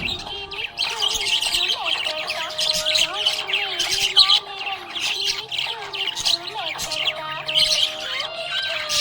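Budgerigars chirping and chattering, a dense run of rapid, high chirps and squawks with no pause, over a steady wavering melody underneath.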